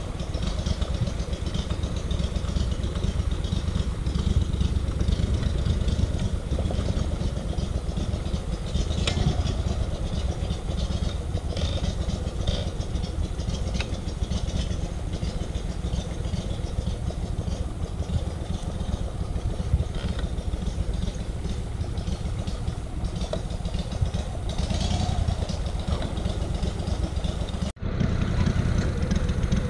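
Mud boat's surface-drive motor running steadily under way, mostly a deep, even drone.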